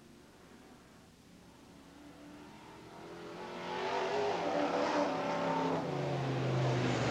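Engines of several off-road race trucks running on a dirt track, faint at first and growing louder from about three seconds in as they come nearer, their pitch rising and falling with the throttle.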